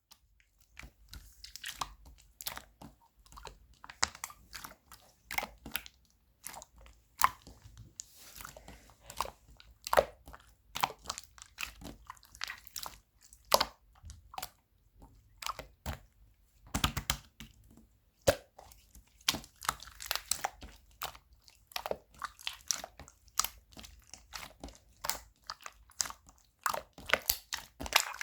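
Slime being squeezed and pressed by hand, giving a dense, irregular string of sharp crackles and pops.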